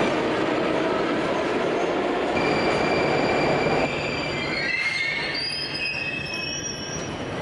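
Metro train running along the platform, with a loud, even rush of wheels and motors. It drops off abruptly partway through, and then high metal-on-metal wheel squeals glide up and down in pitch.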